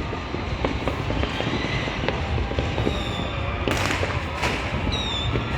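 Many fireworks going off across the city: a continuous crackle of distant pops and bangs, with a few louder bangs about four seconds in and short high whistles.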